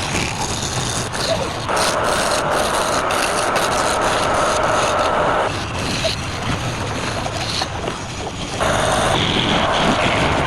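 Wood lathe running, with a tool rubbing and scraping against the spinning workpiece in two long passes: one from about two seconds in to just past the middle, and another starting near the end.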